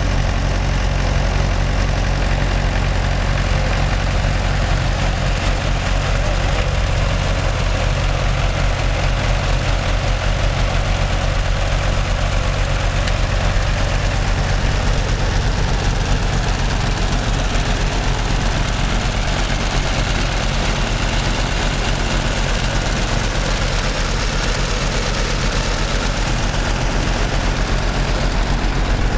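1942 Farmall Model A tractor's four-cylinder gasoline engine running steadily, close by, with a deep even throb.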